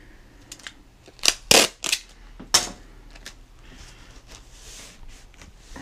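Cardboard shipping box and its packing tape being handled: about four sharp knocks and crackles between one and three seconds in, then a softer rustle.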